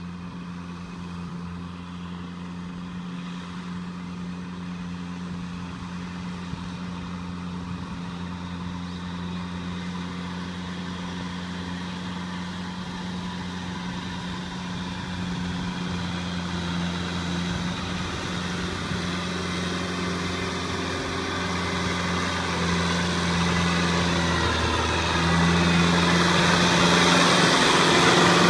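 Kubota M6040SU tractor's diesel engine running steadily as it pulls a rotary tiller through a wet paddy field, growing steadily louder as it comes close.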